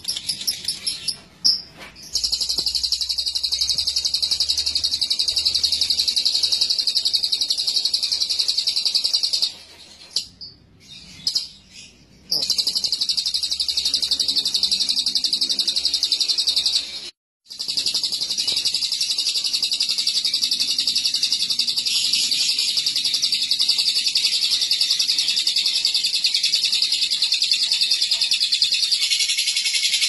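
A Fischer's lovebird singing a long, rapid, high-pitched chattering trill (ngekek) with phrases copied from the cililin. After a few short chirps it runs unbroken for several seconds, stops for about three seconds, starts again, breaks off for an instant, and then chatters on without a pause.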